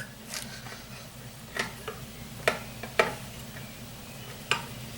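Tire spoons knocking against a dirtbike wheel rim while a tire is levered on: about five sharp, scattered clicks over a few seconds.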